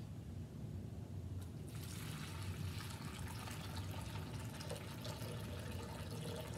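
Sterile water being poured from a bottle into a plastic basin, a steady splashing hiss that begins about two seconds in and continues.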